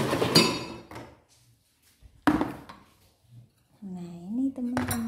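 Kitchen clatter with a short metallic clink in the first second, then one sharp knock a little over two seconds in, as of a bowl or dish set down on a table. A person's drawn-out voice comes in near the end.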